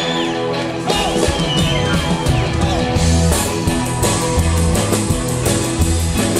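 Rock 'n' roll band playing live without vocals: an electric guitar lead over bass, piano and drums, with steady cymbal ticks. The band comes in fuller about a second in.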